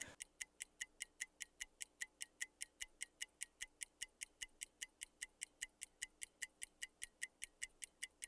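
Countdown timer sound effect: a steady, even clock-like ticking, about five ticks a second, marking the time left to answer.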